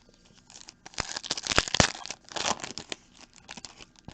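Foil trading-card pack wrapper crinkling as it is torn open, with a run of crackles that is loudest in the first couple of seconds.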